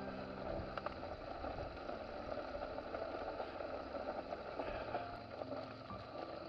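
Motorcycle riding along a gravel road: engine and road noise. Background music fades out about a second in and comes back near the end.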